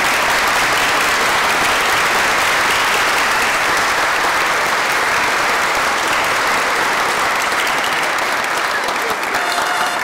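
A congregation applauding steadily, with music coming in near the end.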